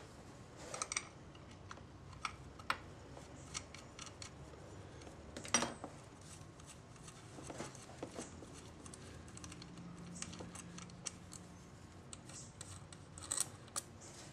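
Small metal clicks and clinks of nuts and tools as the mounting nuts on a Victor phonograph motor's bolts are loosened and taken off, at an irregular pace, with one louder clink about five and a half seconds in and a quick run of clicks near the end.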